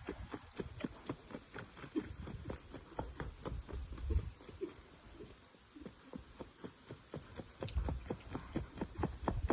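A gaited horse's hooves striking the ground at the marcha: a quick, even run of hoofbeats, about four or five a second, fainter around the middle.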